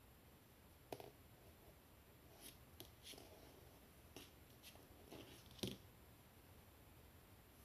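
Faint handling sounds of knitting: needles and yarn lightly clicking and rustling in the hands, a scattered string of about eight soft ticks, the sharpest a little past the middle.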